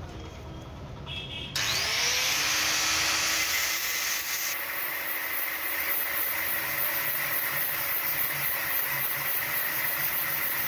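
Angle grinder switched on about one and a half seconds in, whining up to speed, then running steadily while a small steel ball is ground down against its disc.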